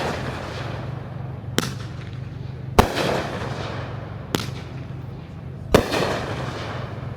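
Aerial firework shells bursting: four sharp bangs roughly a second and a half apart, the two loudest trailing into crackle, over a steady low hum.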